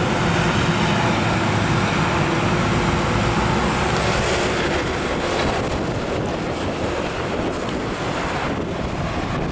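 Loud steady rushing street noise with a low, uneven rumble; the hiss eases a little about halfway through.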